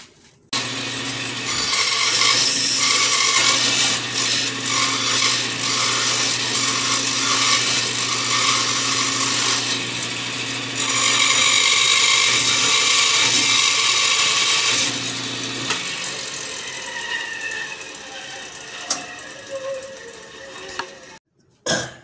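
Electric woodworking saw cutting wood: a steady motor hum under a loud rasping cut in two long passes, the second about halfway through. Near the end the motor falls in pitch and fades as it runs down.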